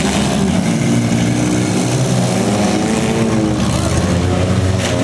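Several small demolition derby cars' engines running and revving together, their pitch rising and falling, with a sharp knock near the end.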